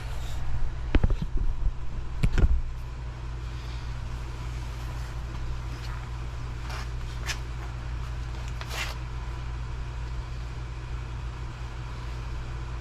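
A few sharp knocks and clanks, the loudest at about one and two and a half seconds in and fainter ones later, from handling the jack and blocks under a lathe. A steady low hum runs underneath.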